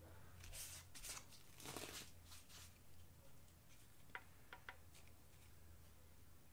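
Faint rustling of a paper towel wiping wet acrylic paint off a metal paint scraper, in a few short strokes, then three tiny clicks a little after four seconds in.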